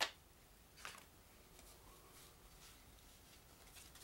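Near silence broken by a sharp tap at the start and a lighter one about a second in, from game cards being handled and set down on a wooden table.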